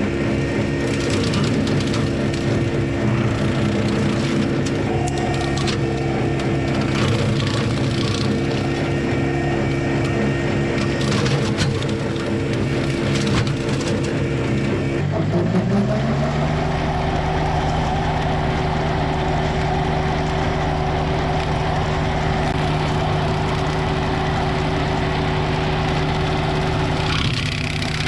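John Deere 755 compact tractor's diesel engine running with the bushhog, with cracking and crunching of wood through the first half. About halfway through, the engine note rises and then holds steady at higher revs.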